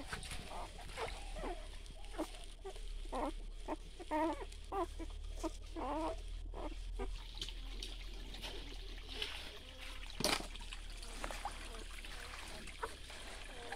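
Newborn puppies whimpering and squealing in short, repeated high cries through the first half, over a shallow stream trickling across rocks. A single sharp knock about ten seconds in.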